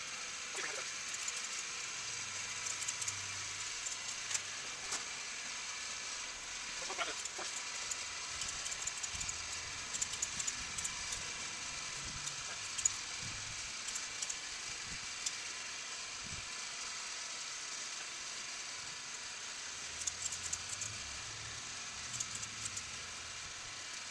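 Homemade gasifier's blower running with a steady whirring hiss as it pushes smoky gas out through the flare stack, with scattered light clicks and crackles over it.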